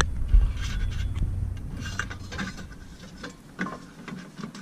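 Scattered rubbing, scraping and light clicks of wires and plastic trim being handled as the brake-light wires are fed through an opening in the car's body.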